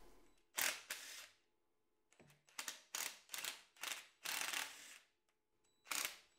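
Power ratchet running in about eight short bursts, each under a second, spinning out the bolts of a Dana 44 rear axle's differential cover.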